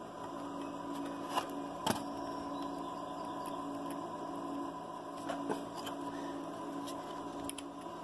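Hands handling a plastic instrument cluster and its circuit board: a few faint clicks and taps, about a second and a half and two seconds in and again around five seconds, over a steady low hum.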